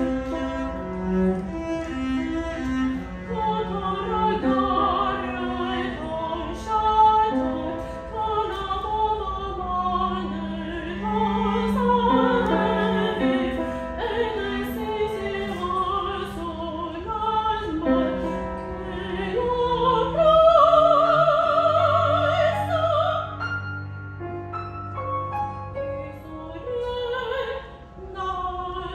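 Classical soprano singing an art song with grand piano and cello accompaniment. About two-thirds of the way through she holds a high note with wide vibrato over a low sustained cello note.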